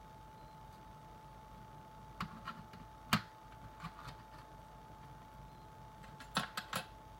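Small clicks and taps of a pin-tumbler lock and its parts being handled while it is taken apart, in irregular groups: a few around two seconds in, the loudest about three seconds in, and three quick ones near the end. A faint steady whine runs underneath.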